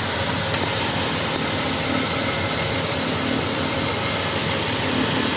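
Dodge Caravan engine idling, warmed up to operating temperature, heard from underneath the car as a steady hum under an even rushing noise.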